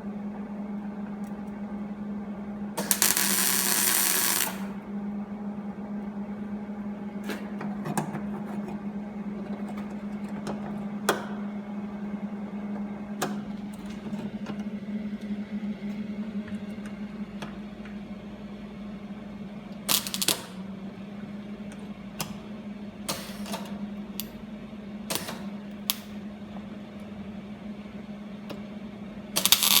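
Electric arc welding: a steady hum with short bursts of crackling arc. One burst lasts about a second and a half about three seconds in, and briefer ones come around twenty and twenty-three seconds. Scattered pops and clicks fall in between, and a continuous arc starts just before the end.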